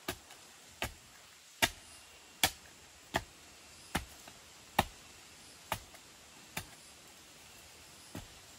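Steel shovel blade driven down into packed earth again and again, a sharp chop with each strike. The strikes come at a steady rhythm of a little more than one a second, about ten in all, with a short pause near the end.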